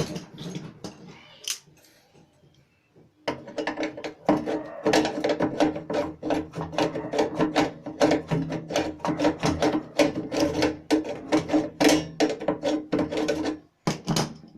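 Rapid mechanical clicking or ratcheting, starting about three seconds in and lasting roughly ten seconds, after a few separate knocks.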